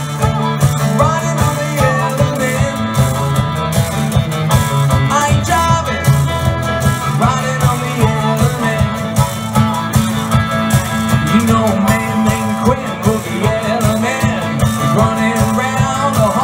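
Live blues band playing with electric and acoustic guitars over a steady drum beat.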